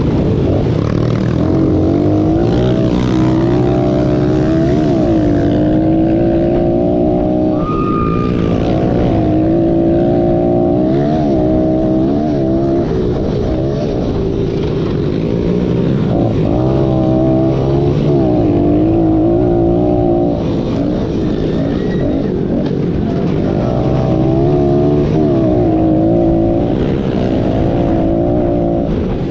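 Small four-stroke single-cylinder pit bike engine heard close up from on board, revving up and down hard as the rider works the throttle and gears around the track. The revs climb and fall again and again, with short lulls where the throttle is rolled off.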